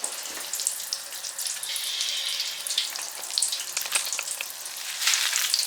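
Popping candy crackling and fizzing in a slime-filled bath: a dense, steady run of tiny sharp pops with a sizzling hiss.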